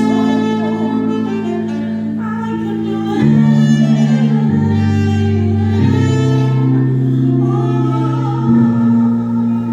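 Slow instrumental music of long held chords, the bass note moving to a new pitch every one to three seconds.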